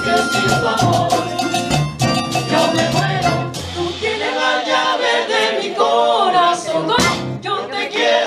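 Colombian carnival music played live by a band with guitars, double bass, percussion and voices singing. A little under four seconds in, the deep bass notes drop out, leaving voices singing together over percussion.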